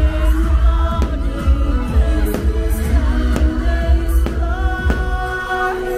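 Fireworks show music with singing, with about five sharp firework bangs from shells bursting overhead and a constant low rumble underneath.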